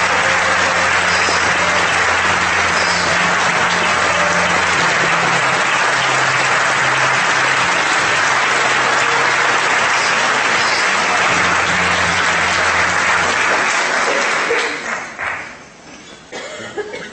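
A large audience applauding, long and steady, then dying away about fifteen seconds in.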